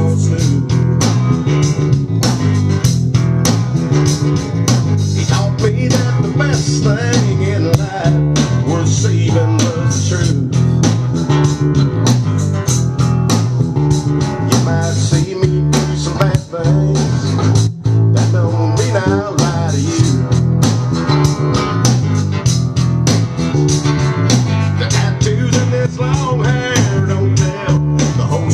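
Drum kit and electric bass guitar playing a steady, loud groove together, the bass line prominent under regular drum hits, as a band's rhythm section lays down a song.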